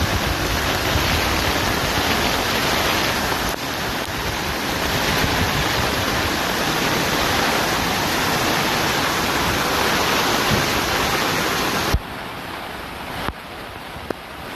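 Loud, steady rush of water in a flash flood during torrential rain. It changes abruptly as clips cut, dropping in level about twelve seconds in.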